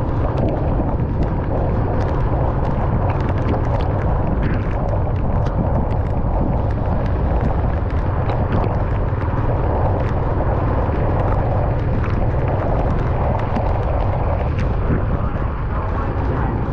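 Car driving in the rain: a steady low rumble of road and tyre noise, with irregular light taps of raindrops hitting the car.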